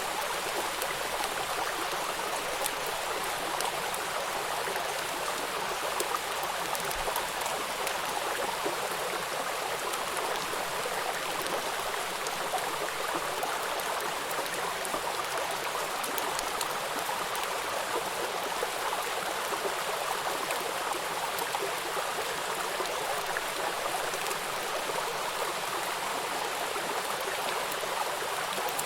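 A stream of running water flowing steadily, an even rush with many small splashes and drips.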